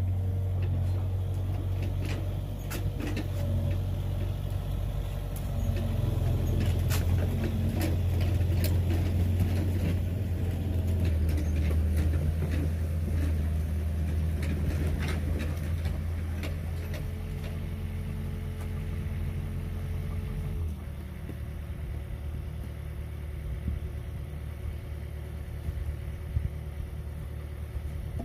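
Excavator engine idling steadily, dropping to a lower, quieter hum about 21 seconds in. Over it come scattered clinks and scrapes from a shovel working stony soil.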